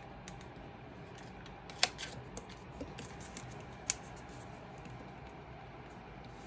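Cardstock being handled and pressed down while hot-gluing: scattered light clicks and taps, the two sharpest about two and four seconds in, over a faint steady hum.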